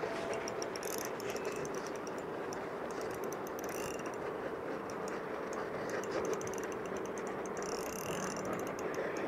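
Spinning reel clicking in rapid runs of fine ticks while a hooked fish is being fought. The clicking comes in three spells: near the start, around the middle and near the end, over a steady background noise with a faint hum.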